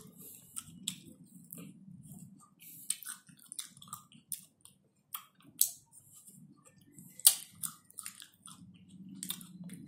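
Close mouth sounds of eating an ice-cream bar on a stick: scattered wet smacks and clicks of licking, sucking and biting, the sharpest about seven seconds in.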